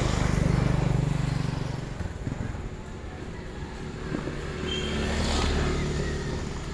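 Engine hum of a passing motor vehicle, swelling and fading over the first two seconds, then a second vehicle swells and fades about five seconds in.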